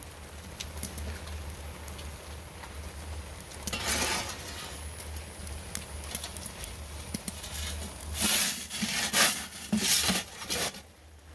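Metal pizza peel scraping across the oven's stone floor and knocking against the oven mouth as the pizza is lifted out. There is one scrape about four seconds in, then several louder scrapes and clatters close together near the end, over a steady low rumble.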